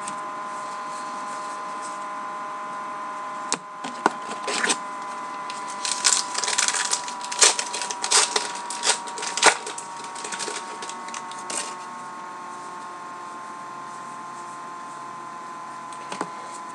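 Baseball trading cards being handled and flipped through, an irregular run of sharp clicks and short rustles, clustered in the middle and thinning out after about twelve seconds. A steady background hum with a faint tone runs underneath.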